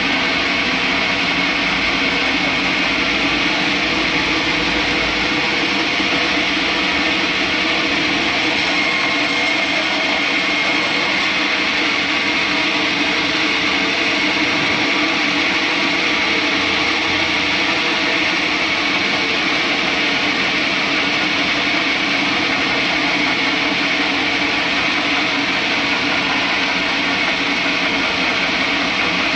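Sawmill saw machinery running with a steady, even mechanical drone that does not let up.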